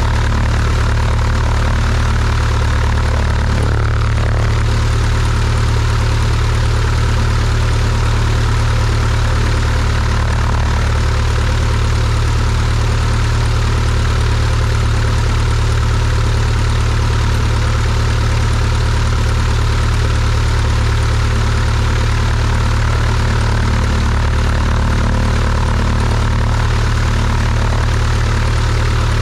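Cessna 172's piston engine and propeller running at low taxi power, a loud, steady drone that holds even throughout.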